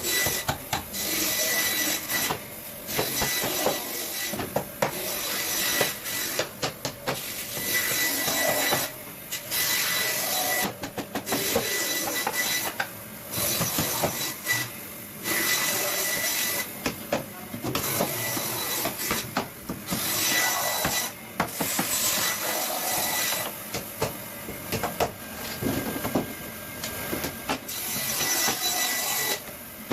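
Air staple gun working with an air hiss, the hiss breaking off briefly every second or two amid sharp clicks.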